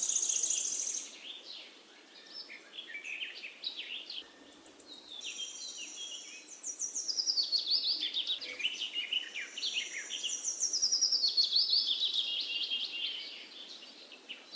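Small songbirds singing: a busy stream of quick high chirps and trills, with runs of notes falling in pitch, loudest in the middle stretch.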